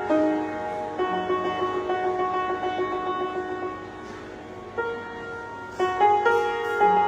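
Solo piano playing a slow melody over held chords, thinning out briefly in the middle before fuller chords come back in.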